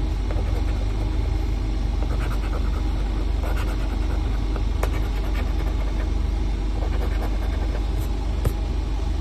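A coin scraping the scratch-off coating from a lottery ticket in short rasping strokes with a few clicks, over a steady low hum.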